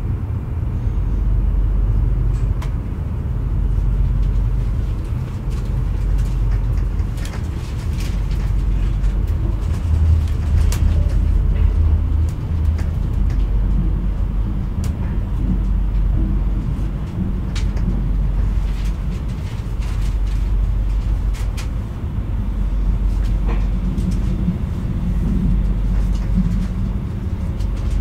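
Running noise inside a Metronom double-deck regional train coach: a steady low rumble from the train moving along the track, swelling and easing slowly, with scattered faint clicks and rattles.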